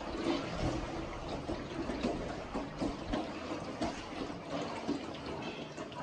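River water lapping and splashing irregularly around a small boat inside a limestone cave.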